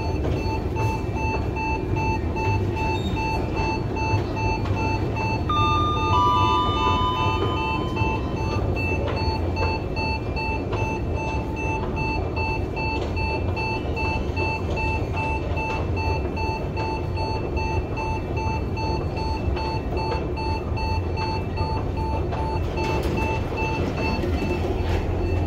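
KONE MonoSpace inclined elevator travelling, its warning signal beeping steadily and repeatedly over a low rumble. A short two-note chime, high then low, sounds about six seconds in.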